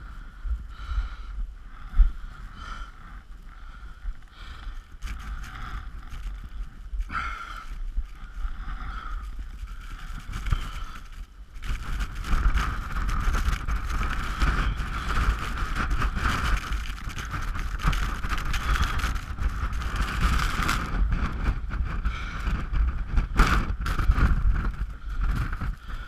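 Strong gusting wind buffeting the microphone in a snowstorm, a deep rumble under a rushing hiss; it grows louder and more continuous from about twelve seconds in.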